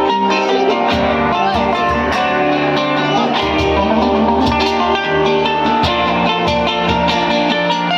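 A rock band playing an instrumental passage: guitar over a steady bass line, with drums keeping a regular beat.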